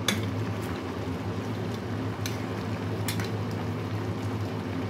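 Chicken-and-pasta sauce simmering and bubbling in an enamelled pot over a steady low hum. A metal spoon clinks sharply against the pot three times, at the start, a little after two seconds and about a second later, as the pasta is moved.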